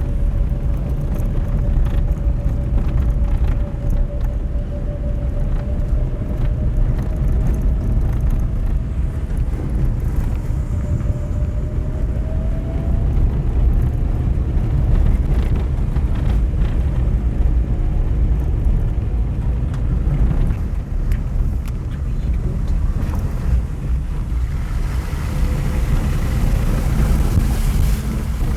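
Small car driving up a gravel mountain road, heard from the cabin: a steady low rumble of tyres and engine with a thin whine that drifts slightly in pitch. Near the end a hiss builds over it.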